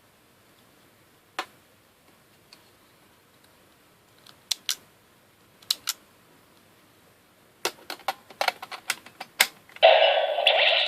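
Sharp plastic clicks and snaps from handling Zyudenchi battery toys and the DX Gabutyra de Carnival toy: a few spaced single clicks, then a quick flurry of clicks. About a second before the end, the toy's loud electronic sound playback starts.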